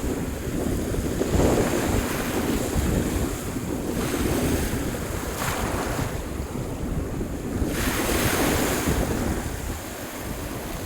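Sea waves washing in, swelling every few seconds, with wind buffeting the microphone.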